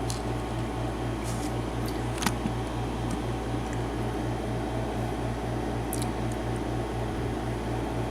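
Steady low hum with a regular pulse, over which a few faint, small clicks of metal lock parts being handled sound, the sharpest about two seconds in.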